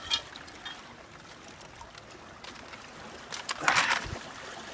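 Sea water washing and lapping against the rocks, with a louder rush of water about three and a half seconds in.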